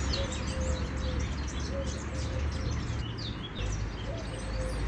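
Many small birds chirping in a busy, overlapping chorus, over a steady low rumble.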